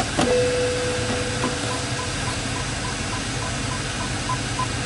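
Electronic warning chimes inside a BMW 550i xDrive: a click, then one steady tone lasting about two seconds, overlapped and followed by a regular run of short, higher beeps about three a second that keeps going. Under them, the car's 4.4-litre twin-turbo V8 idles as a low hum.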